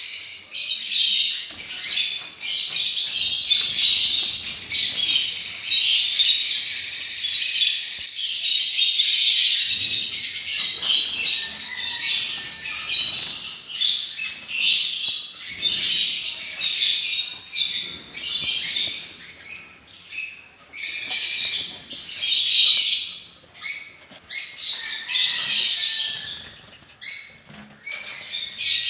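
Gouldian finches chirping and calling in a cage: a dense, high-pitched run of quick chirps that grows more broken into separate bursts in the second half.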